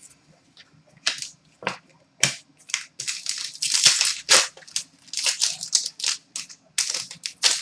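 Trading cards being handled: a string of short, irregular rustling and crinkling scrapes of cardboard cards and plastic packaging.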